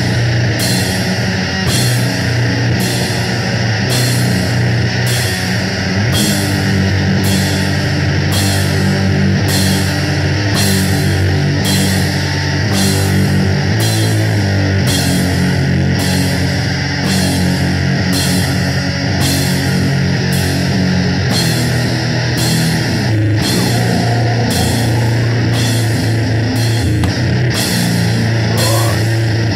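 A live heavy doom/sludge band playing: a low, sustained electric guitar riff over a drum kit. A cymbal is struck on a steady beat a little more than once a second.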